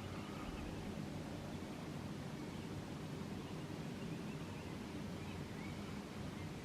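A steady low droning hum made of several held tones, of the kind reported as the Swansea hum, with a few faint short high chirps over it.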